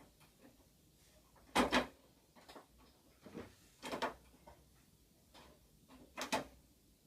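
Sharp plastic clicks and knocks of a tube being handled and fitted into a fluorescent light fitting, the loudest coming as close pairs about a second and a half in and near the end.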